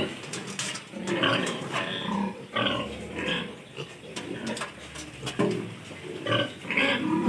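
Several piglets calling in short, irregular bursts that overlap and break off, with quieter gaps between them.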